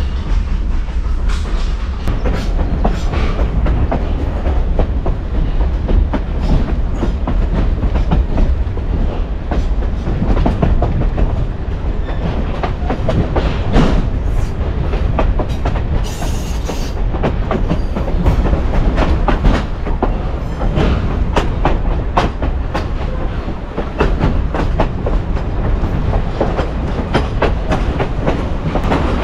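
Train wheels clacking over the rail joints as the train runs, over a steady low rumble.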